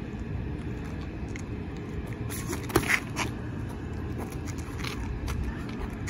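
Sparring boxers' gloves and sneakers on asphalt: a few short sharp slaps and scuffs, the loudest a smack about three seconds in, over a steady low outdoor rumble.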